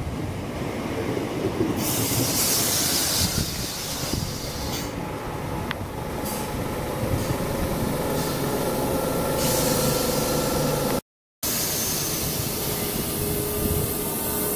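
Class 319 electric multiple unit running alongside the platform: a steady rumble of wheels on rail with a thin steady whine from about six seconds in, and bursts of hiss. The sound drops out briefly about eleven seconds in.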